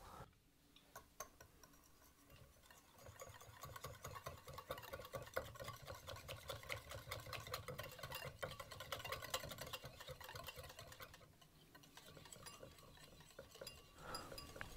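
Wire balloon whisk beating egg yolk, Dijon mustard and salt in a ceramic bowl to dissolve the salt, the wires making faint rapid ticking against the bowl. It starts about three seconds in, pauses briefly near the end, then resumes.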